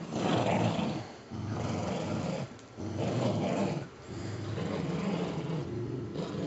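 Dogs growling in play during a tug of war over a stuffed toy: four rough, low growls of a second or more each, with short breaks between them.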